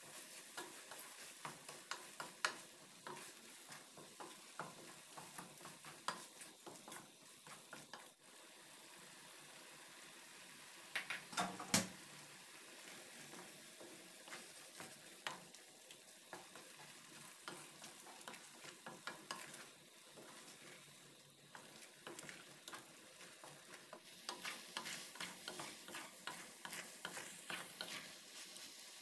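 Wooden spatula stirring grated carrots in a stainless steel pan, scraping and tapping against the metal, with frequent short clicks and a few louder knocks near the middle. Under it the moist carrot mixture sizzles steadily as it cooks.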